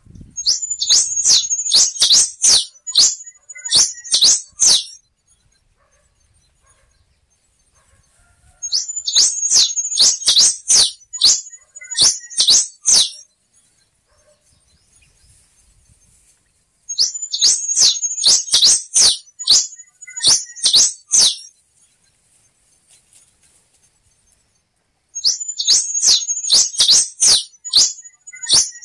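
Black-and-rufous warbling finch (quem-te-vestiu) singing: four bursts of rapid, sharp, high notes, each lasting about four seconds, repeated roughly every eight seconds.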